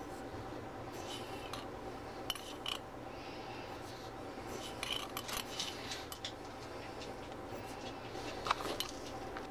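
Loose black tea being spooned into a stainless saucepan of milk: a teaspoon scraping and tapping in several short bursts of clicks, the sharpest near the end, over a faint steady hum.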